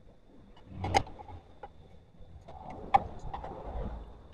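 A screwdriver and metal motorcycle parts knocking and clinking during hand assembly: a loud knock about a second in, a sharp click near three seconds, and a few lighter clicks.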